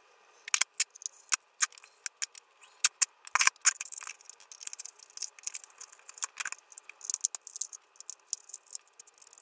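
Irregular small metallic clicks and rattles as a compact metal-cased amplifier is taken apart: tiny screws are backed out and set down on the desk, and the case parts are handled.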